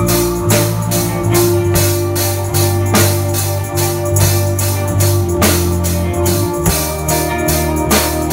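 Live rock band playing: drum kit with regular cymbal and drum strikes over electric guitars and keyboard, the low sustained notes changing every second or two.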